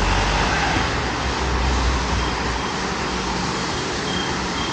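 Steady city traffic on a wet road, tyres hissing and engines running, with a heavier low rumble in the first half. A faint high beep repeats about twice a second in the second half.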